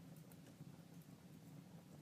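Wood fire crackling faintly: a few soft pops and snaps over a low steady hum.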